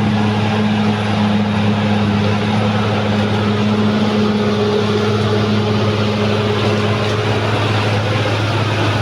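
Caterpillar D6R XL bulldozer's diesel engine running steadily under a constant load, a loud low hum with no change in speed.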